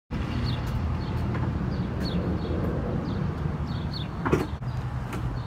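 Outdoor ambience: a steady low rumble with small birds chirping over and over, and one louder call-like sound about four seconds in.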